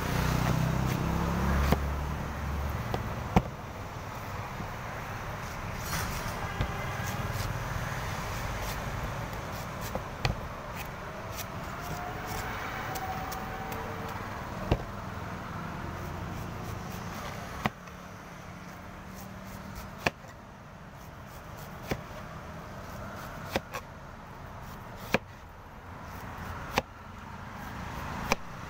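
Cleaver chopping and shaving the husk of a young green coconut: sharp knocks at irregular intervals, about a dozen in all, over a steady background hum of road traffic that is heaviest near the start.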